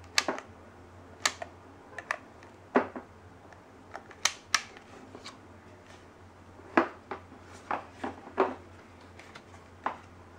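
Sharp plastic clicks and taps, about a dozen at irregular spacing, from a WEN heat gun's plastic housing and switch being handled and turned over in the hands; the gun itself is not running.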